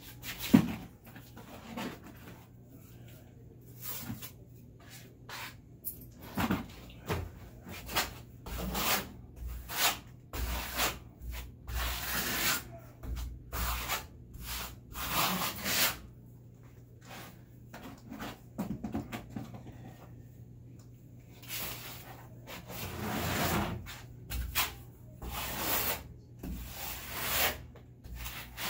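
Trowel spreading and scraping microcement base coat onto a wall: repeated, irregular scraping strokes, each under a second or so. A sharp knock about half a second in.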